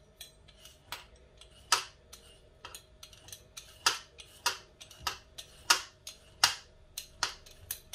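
A vegetable peeler scraping the skin off a boiled carrot in short, quick strokes, about two a second.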